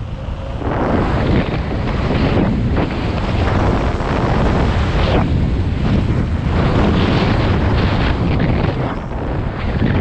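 Wind buffeting the microphone of a GoPro Hero 7 Black on a fast mountain-bike ride: a loud, rough rush with heavy low rumble that swells and eases unevenly.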